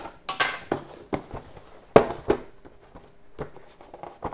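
Cardboard jigsaw puzzle box being handled on a table: a string of knocks and clatters, about five in four seconds, with a crinkly rustle near the start.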